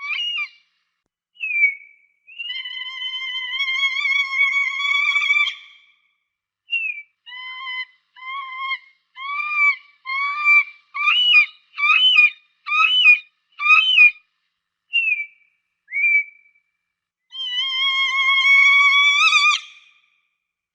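Falcon calling in clear, pitched cries: a long drawn-out call of about three seconds, then a run of about a dozen short calls that grow louder toward the middle, and another long call near the end that rises slightly before cutting off.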